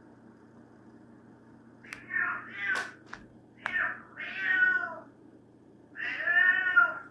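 A domestic cat meowing repeatedly: about five drawn-out meows in three groups, the last nearly a second long. She is calling because her companion cat is not beside her.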